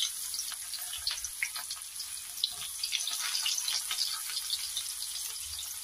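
Chopped shallots frying in hot oil in a pan: a steady sizzling hiss with many small scattered pops and crackles.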